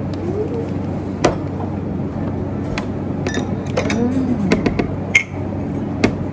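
Restaurant ambience: a steady background murmur of diners' voices with a low hum. Over it come a string of sharp clinks and knocks of a plate, chopsticks and a glass on a wooden table, the brightest, a ringing clink, about five seconds in.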